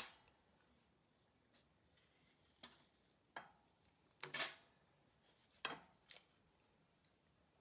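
A knife cutting an aloe vera leaf: about six faint, separate clicks and scrapes of the blade against the leaf and the surface beneath, the loudest about four and a half seconds in.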